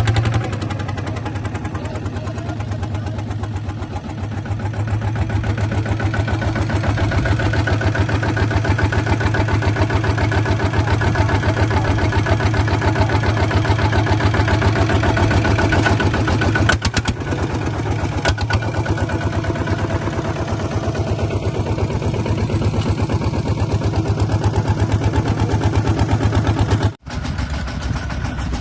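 Small bulldozer's engine running with a rapid, even chug, easing a little about four seconds in and picking up again. The sound cuts out for a moment near the end.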